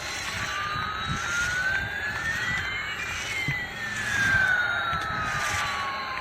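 Battery-operated toy aeroplane's electronic sound effect: a jet whine that rises steadily for about three seconds and then falls back down, over a hissing rush.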